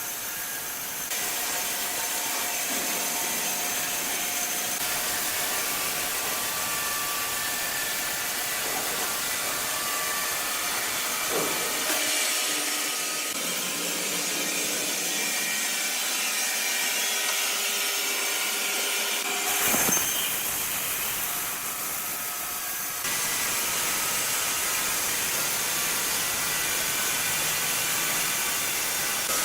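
Sawmill saw cutting through wood, a steady dense rasping noise with a faint whine. The sound changes abruptly several times, once near the middle and again about two-thirds through.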